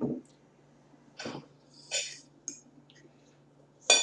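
Close-up eating and mouth noises: a handful of short, separate sounds, throat-clearing and cough-like noises, smacks and a small click, over a faint steady low hum. The loudest come right at the start and near the end.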